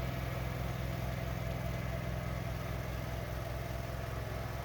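Riding garden tractor's engine running steadily with its front snowblower engaged, an even low hum.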